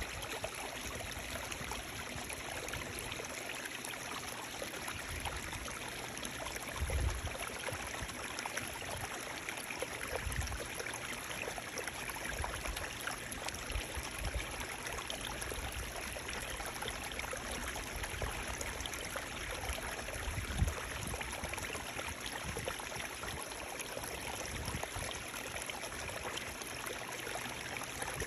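Running water flowing steadily, an even rushing with a trickle in it. Two brief low thumps break through, about a quarter of the way in and again about three quarters in.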